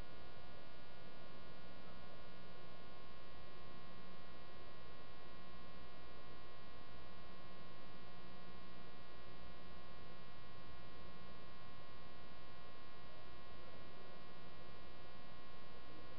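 Steady, buzzy electrical mains hum.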